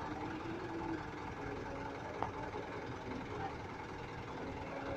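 A truck engine running slowly as the modified truck creeps into position, with a sharp click about two seconds in.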